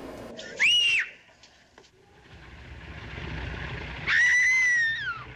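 A person screaming twice in a film clip of a fall from a church tower: a short high cry, then a longer one a few seconds later whose pitch slides down at its end. A rising hiss fills the gap between them.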